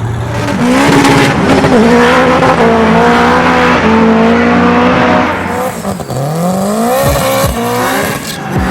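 A car engine revving hard. Its pitch holds high, drops about six seconds in, then climbs again toward the end.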